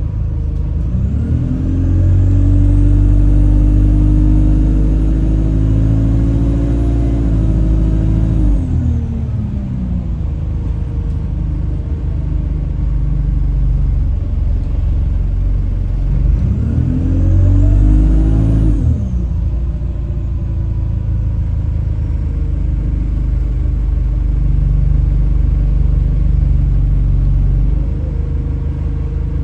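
Alexander Dennis Enviro 200 bus engine running and pulling away twice, the engine note rising and then falling each time. A whining tone rises and falls with it; the uploader suspects this strange whistling, horn-like noise comes from the gearbox.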